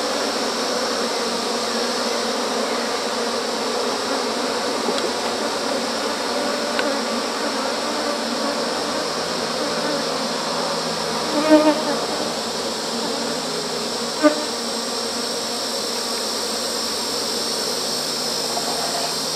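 Honeybees buzzing steadily around an open hive box during an inspection, a small young colony stirred up by the opened hive. Two brief louder sounds stand out around the middle.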